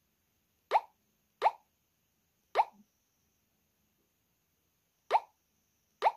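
Five short electronic 'bloop' tones from the JiSED A1 fidget spinner phone, each a quick upward slide in pitch, coming at uneven intervals over clean silence.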